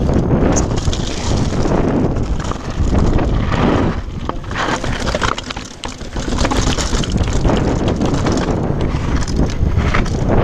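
Wind buffeting the camera's microphone as a downhill mountain bike rides fast over loose rock, stone steps and paving, with the bike's parts clattering and knocking over the bumps. The sound eases off for a moment a little past the middle, then picks up again.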